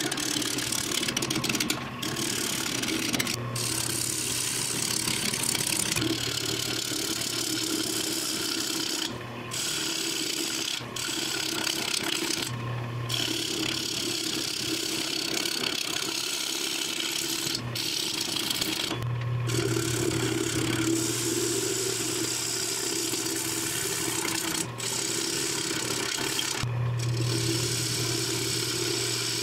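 Jet mini wood lathe running with a steady motor hum while a hand-held turning tool cuts a spinning wooden bowl blank, giving a rough hissing cutting noise. The cutting stops for short moments several times as the tool lifts off the wood, leaving only the hum.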